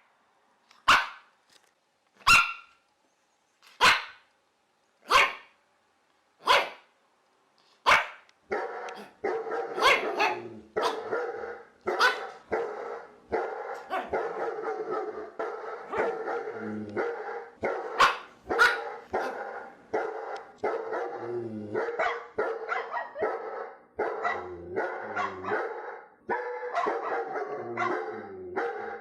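A dog barking single loud barks, about one every second and a half. About eight seconds in, a dense stretch of barking begins, with barks overlapping one another over a steady din.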